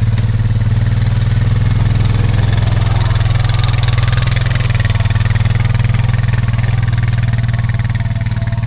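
Honda Foreman 520 ATV's single-cylinder engine running steadily close by, its firing pulses even throughout with no clear revving.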